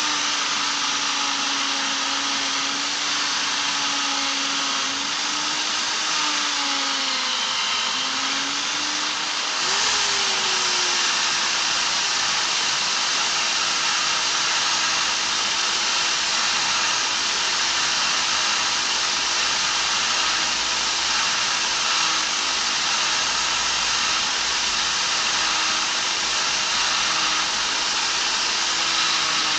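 Bench-mounted Black+Decker electric drill running a polishing pad while a small epoxy resin piece is pressed against it for polishing: a steady motor hum over the hiss of the pad rubbing the resin. The motor's pitch sags briefly about six to eight seconds in, then steadies again from about ten seconds.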